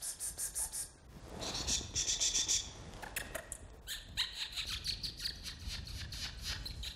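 American oystercatchers calling: several runs of rapid, high piping notes, one run after another, over a steady low rumble.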